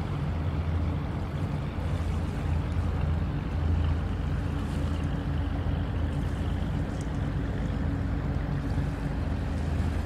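Engine running with a low, steady drone over a hiss of wind or water.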